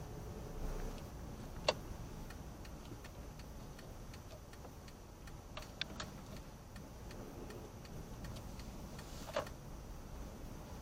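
A car's turn-signal indicator ticking evenly under a low, steady engine and road rumble. A few sharper clicks stand out, the loudest a little under two seconds in.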